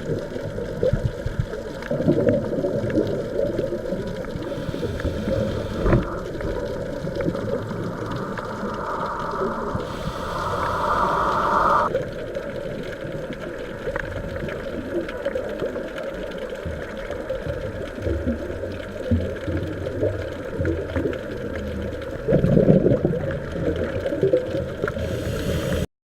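Underwater noise picked up by a diving camera: a steady low rumble full of small crackles, swelling a few times with gurgling bursts like a scuba diver's exhaled bubbles.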